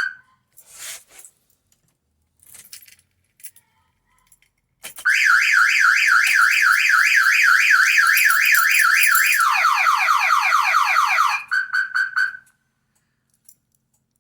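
Aftermarket car alarm siren on an XC Ford Falcon going off when the armed car is tried for a start: a loud rising warble about four times a second, switching partway through to faster falling sweeps. It cuts off after about six seconds and is followed by four short chirps.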